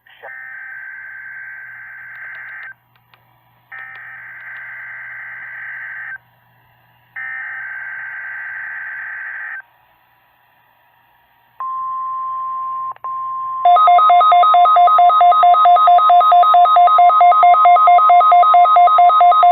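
NOAA Weather Radio Required Weekly Test signals: three bursts of SAME digital header data, each about two and a half seconds long with a second's gap between them, then the 1050 Hz warning alarm tone, a steady whistle starting about eleven and a half seconds in. About two seconds after the alarm tone starts, a much louder rapid two-tone electronic beeping joins it.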